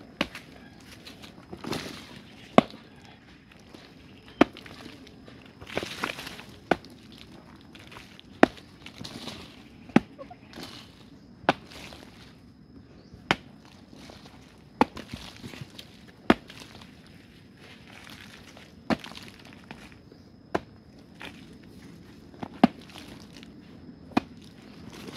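A digging tool chopping into the hard earth of a termite mound, striking sharply about every one and a half to two seconds, with some soil scraping between the blows.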